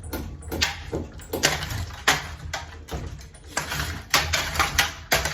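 A damaged ceiling fan clattering, with repeated sharp knocks and rattles a few times a second over a low steady motor hum.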